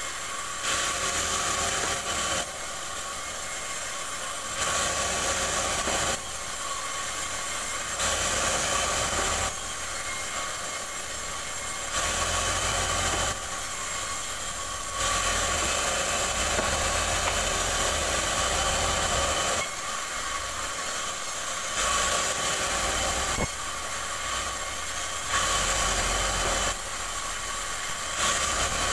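Band saw mill running steadily, its blade noise rising each time a rubberwood plank is pushed through the cut. It goes in passes of a second or two, about eight in all, with one longer pass of about four seconds midway.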